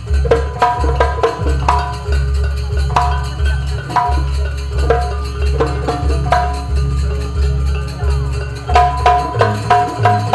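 Javanese gamelan-style percussion music for a sampak dance: drum strokes over deep bass beats and ringing pitched metal strikes in a driving rhythm. A steadier, denser beat of ringing strikes sets in near the end.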